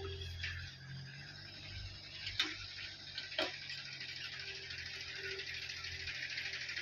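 Diesel engine of heavy loading machinery running steadily, with two sharp knocks about a second apart and a hiss that builds in the second half.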